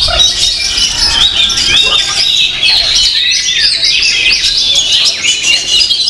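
Oriental magpie-robins (kacer) singing, many rapid whistled and chirping phrases overlapping without a break.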